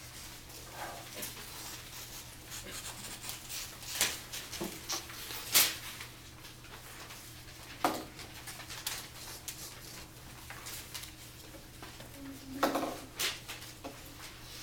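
Desk handling noises: a few sharp clicks and knocks and light paper sounds as a cut-out paper table is set down and pressed onto a notebook page, over a steady low hum.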